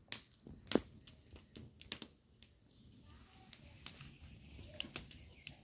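Wood fire crackling under a cauldron: irregular sharp pops and snaps, the loudest about a second in.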